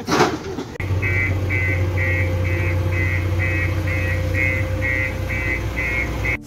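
JCB 3DX backhoe loader's diesel engine running steadily, with its reversing alarm beeping about two and a half times a second.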